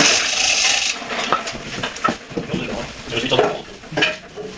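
Sped-up workshop sound: a loud hiss for about the first second, then scattered metallic clinks and clatter.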